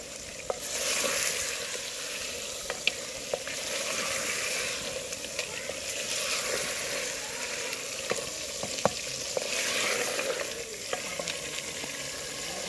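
Mutton frying in a clay cooking pot, a steady hiss that swells and eases as it is stirred with a wooden spatula, with occasional sharp clicks of the spatula against the pot.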